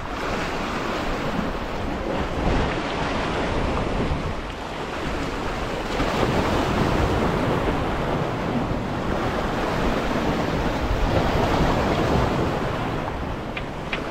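Sea waves washing and breaking against shore rocks, swelling and easing every few seconds, with wind buffeting the microphone. A couple of short, sharp high ticks come right at the end.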